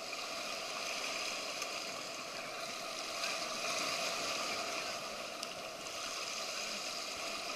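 Sea water splashing and lapping around several people swimming in the water, a steady wash with a few small clicks.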